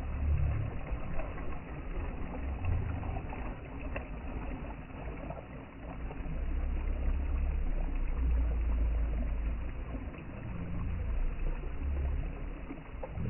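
Ocean waves washing, with a continuous noisy wash and a deep rumble that swells and eases every few seconds.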